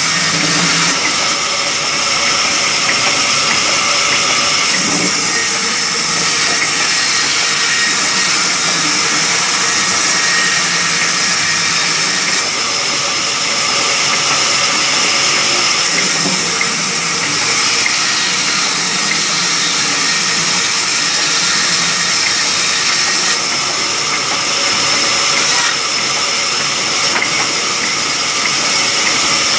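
Large belt-driven vertical band saw running and ripping a long timber slab lengthwise. A loud, steady hiss of the blade through the wood, with a thin high whine.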